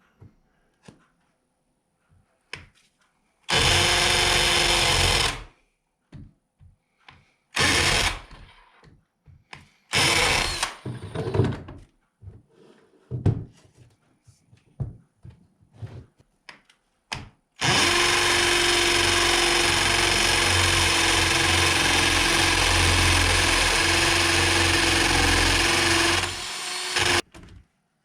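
Power drill boring a hole through a wall: one run of about two seconds, a few short bursts, then a long steady run of about nine seconds that stops near the end.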